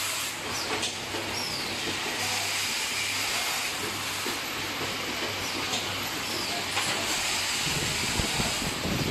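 Automatic caster-assembly machine running on a factory floor: a constant hiss over a steady low hum, with a few sharp mechanical clicks.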